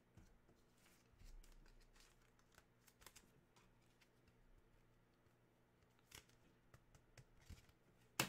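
Faint rustling and scattered light clicks of trading cards being handled and set down on a wooden table, with one sharper click near the end.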